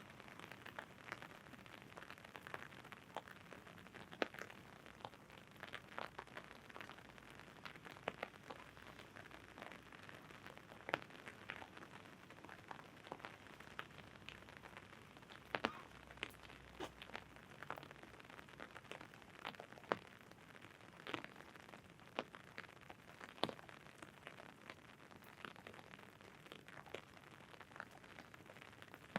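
Rain falling on an umbrella: irregular sharp taps of single drops, a few a second, over a steady soft hiss of rain.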